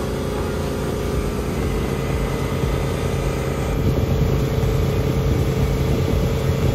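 Supreme S220 wake boat's inboard engine running steadily under way at surf-wave speed, its pitch stepping up slightly about a second and a half in, over the rushing water of the wake.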